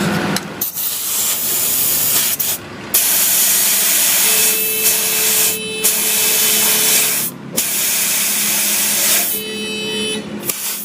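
Compressed air hissing from an air hose in long, loud bursts with short breaks between them, over a faint steady hum, typical of a tyre being inflated after a puncture repair.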